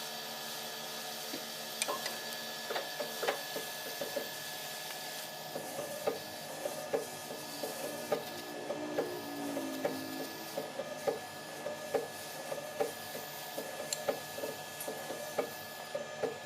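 Irregular light taps and knocks of hand tools working wood, about one or two a second, starting about two seconds in, over a steady background hum.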